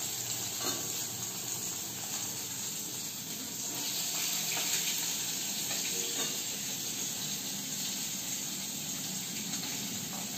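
Two pieces of fish frying in well-heated mustard oil in a kadai: a steady sizzle with a few faint crackles of spattering oil.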